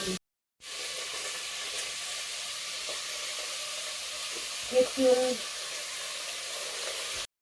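Food sizzling as it fries in a pan, a steady hiss that cuts out briefly just after the start and again near the end.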